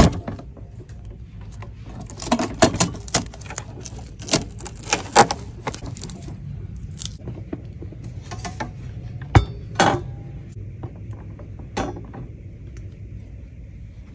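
Hard objects being handled and set down: scattered light clinks, taps and knocks in small clusters, with a heavier thump about nine seconds in.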